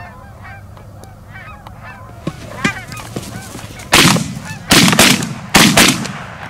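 A flock of geese honking steadily, many calls overlapping. Then a quick volley of about five shotgun blasts, starting about four seconds in, much louder than the honking.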